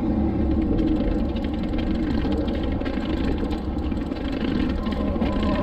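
Mountain bike riding down a long flight of concrete stairs: the tyres and suspension take each step in quick succession, giving a continuous rattling rumble with heavy low-end noise on the handlebar-mounted camera.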